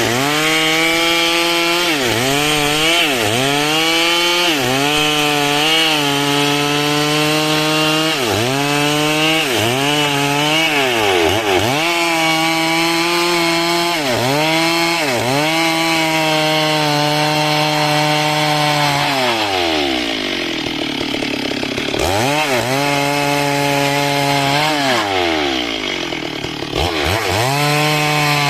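Two-stroke Stihl chainsaw cutting dry timber lengthwise into a beam. The engine pitch dips under load about once a second and recovers. It sags lower for a few seconds about two-thirds through, then picks back up near the end.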